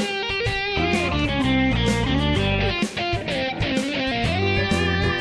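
Background music led by electric guitar, with a bass line and a steady beat.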